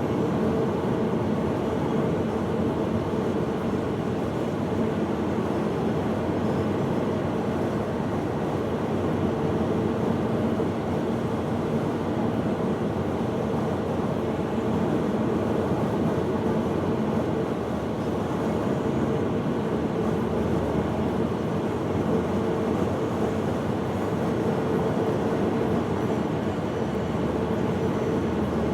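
Steady drone of a moving vehicle: even rumbling noise with a constant low hum, unchanging throughout.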